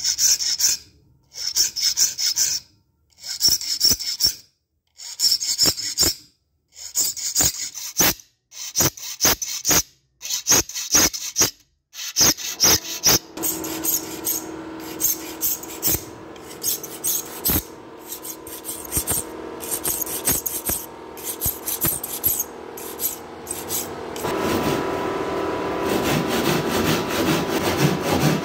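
Triangular file rasping across the teeth of a handsaw clamped in a vise: separate strokes about one a second with short gaps, then quicker, continuous filing. Near the end the sharpened handsaw cuts into a board with a steady run of sawing.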